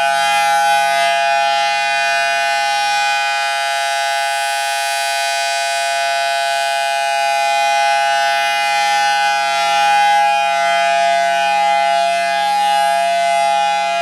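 Federal Signal Thunderbolt 1003A outdoor warning siren sounding a loud, steady tone at full speed during a test. The pitch holds level while the loudness swells and eases slightly.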